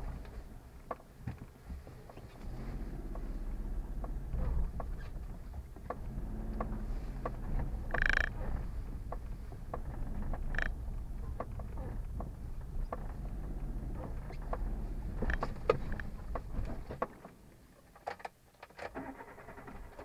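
A car driving slowly over a rough, broken road: low engine and road rumble with frequent knocks and rattles, and a brief squeak about eight seconds in and another a couple of seconds later. The rumble drops away near the end as the car comes to a stop.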